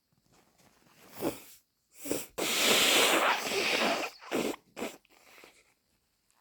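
A sneeze: a couple of short breathy sounds, then a loud, noisy blast that starts sharply about two and a half seconds in and lasts nearly two seconds, followed by two short puffs.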